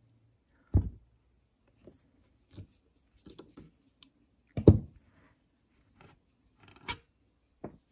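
Scattered light clicks and knocks of tools and metal parts being handled while working the trigger group out of a Savage Model 170 pump-action rifle, the loudest knock about four and a half seconds in.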